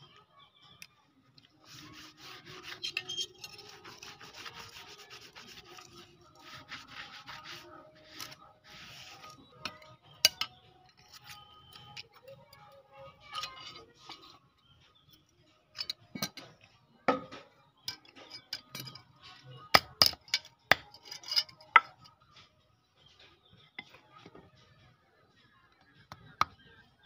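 Several seconds of rubbing and scraping on a steel blade, then scattered metallic clicks and sharp taps as a handle with a metal bolster is worked onto the blade over a steel anvil. It ends with a light hammer tap on a wooden block.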